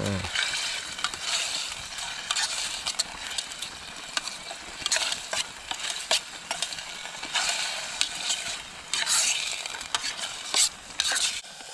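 Chicken pieces sizzling in hot oil in a pan while being stirred, with a steady frying hiss and frequent scraping clicks of the utensil against the pan.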